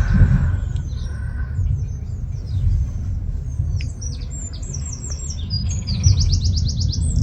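Songbirds singing: short high chirps, then fast repeated trills from about five seconds in, over a steady low rumble.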